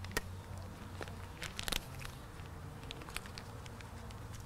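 Light clicks and small crackles from handling the new billet bleeder screw and its parts, with a tight cluster of sharper clicks about a second and a half in, over a steady low hum.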